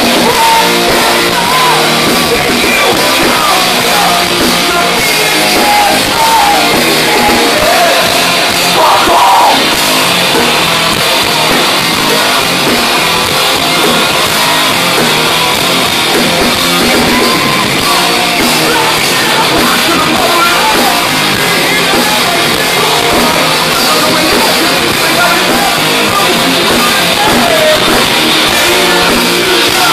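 Hard rock band playing live and loud: distorted electric guitars over bass and drums, with a wavering lead line and some singing or yells.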